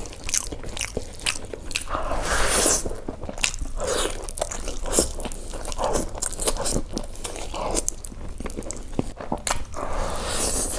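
Close-miked eating by hand: a person biting into chicken and chewing mouthfuls of rice and curry, with many short mouth and finger clicks.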